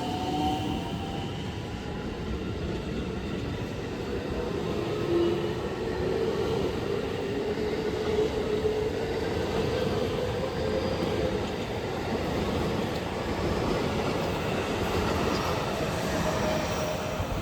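Electric train running on the line, a steady rumble of wheels on rail, with a faint whine that slowly rises in pitch through the middle.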